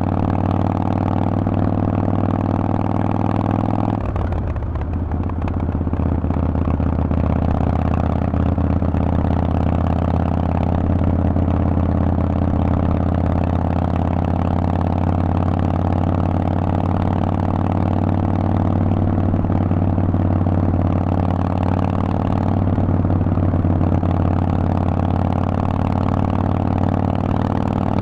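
Harley-Davidson Forty-Eight's air-cooled V-twin running steadily through a Vance & Hines exhaust, with a brief shift in its note about four seconds in.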